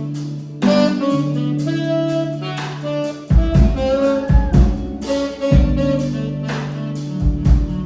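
Instrumental jazz-style music: a saxophone plays a melodic line over a sustained bass, with a drum kit coming in about three seconds in.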